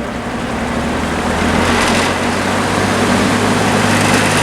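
Westinghouse all-metal box fan with a shaded-pole motor spinning up on its high setting. A rush of air grows louder over a steady motor hum, then levels off about a second and a half in.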